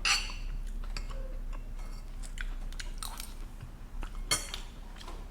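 Close-up mouth sounds of someone eating fried noodles: chewing and lip smacks, with scattered short clicks and a sharper smack right at the start and another about four seconds in.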